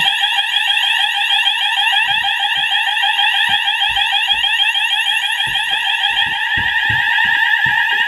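Fire alarm sounder beacon base on a conventional smoke detector, set off by aerosol test smoke and sounding its fast-sweep tone. It is a really loud, continuous rapid run of rising sweeps.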